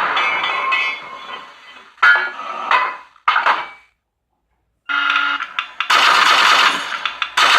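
R/C tank sound unit (TK24) playing its main-gun firing effects through a small 3 W speaker. A loud blast dies away over the first second or so and is followed by several shorter bangs. After a short silence about four seconds in, more loud bursts come.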